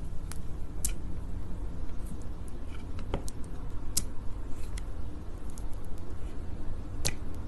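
Sticky honey clicks and pops: a handful of sharp, separate clicks, the loudest a little before the end, over a steady low rumble.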